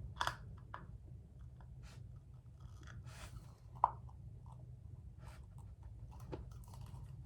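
Small plastic doll-stand pieces being handled and fitted together: scattered light clicks and rustling, with one sharper click about four seconds in.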